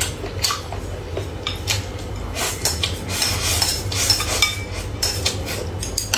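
Eating utensils clinking and scraping against bowls and plates in quick, irregular strokes, some with a short ring, over a low steady hum.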